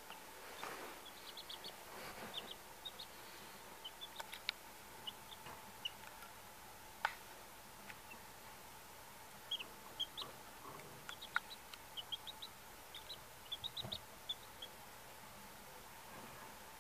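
Baby chicks and turkey poults peeping: short high chirps in quick runs of two to five, on and off throughout, with a few sharp clicks, the loudest about seven seconds in.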